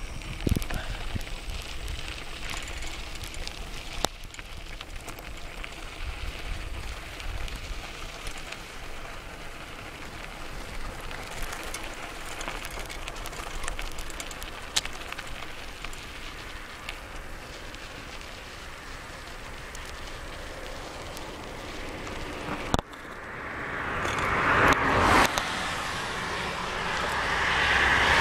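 Steady wind rush and road noise from a bicycle ridden along a paved highway shoulder. Near the end, two passing vehicles swell up and fade, one after the other.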